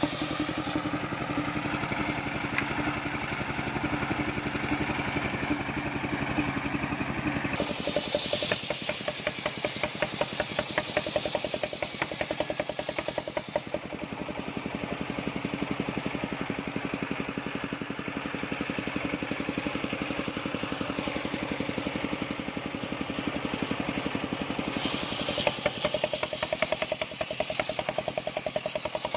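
Large circular saw blade of a mobile sawmill ripping a waru log lengthwise, over the fast, steady knocking of the stationary engine that drives it. The cutting sound grows harsher about a quarter of the way in, eases off in the middle, and grows harsher again near the end as the log is pushed through the blade.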